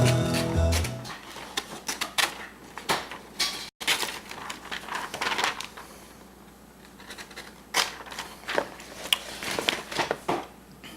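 A multitool knife blade making repeated slicing cuts through material. Each cut is a short scratchy crunch, and they come at irregular intervals with a lull in the middle.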